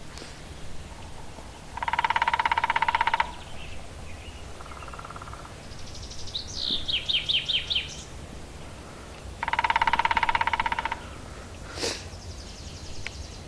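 A woodpecker drumming on resonant wood: two fast, even rolls of about a second and a half, some eight seconds apart, with a fainter roll between them. A small songbird sings a quick falling series of high notes between the drums.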